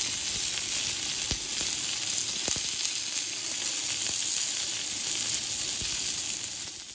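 Beef and tomato kabobs sizzling on a hot ridged grill pan: a steady hiss with a few faint pops, fading out near the end.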